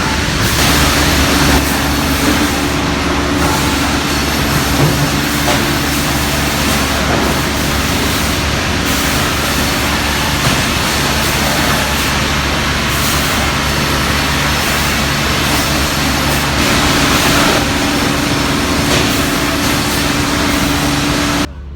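Sawmill machinery running: a loud, steady industrial din with a constant hum, cutting off suddenly near the end.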